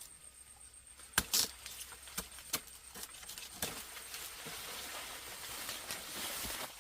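Sugarcane stalks and dry leaves being handled: several sharp snaps and knocks in the first half, then a steady, dry rustle that builds over the second half.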